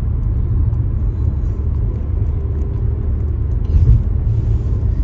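Low, steady rumble of a car driving, heard from inside the cabin: engine and tyre noise, with one louder bump about four seconds in.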